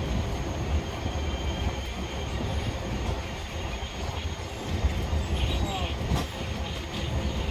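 Indian Railways express passenger coach rolling along a station platform, heard from aboard the train: a steady low rumble of wheels on rails.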